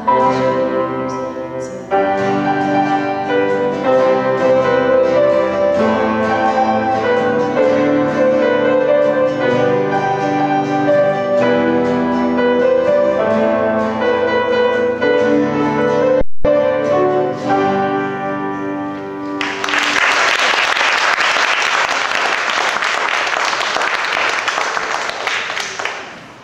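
A grand piano playing a solo piece, broken by a momentary dropout in the sound. About three-quarters of the way through the piano gives way to audience applause.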